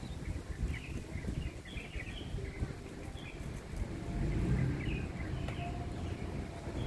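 Wind buffeting the microphone in a low rumble, gusting harder about four seconds in, while small birds chirp repeatedly.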